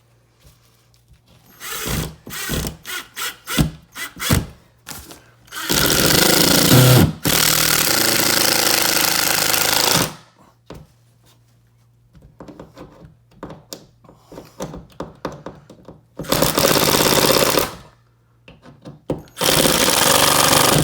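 Power drill driving drywall screws through Sheetrock into the wood support behind, in three runs of a few seconds each, countersinking the screw heads, with short knocks and clicks of handling before the first run.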